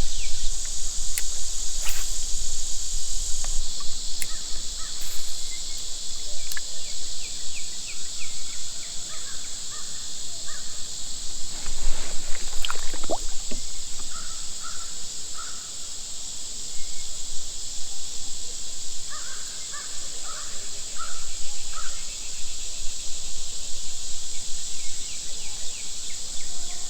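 Crows cawing in two short series, the calls repeated about twice a second, over a steady high-pitched drone of insects.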